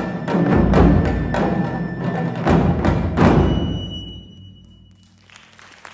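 Japanese taiko drums played by an ensemble: quick strokes with heavy deep hits, ending on a final big stroke about three seconds in that rings and dies away. Faint applause begins just at the end.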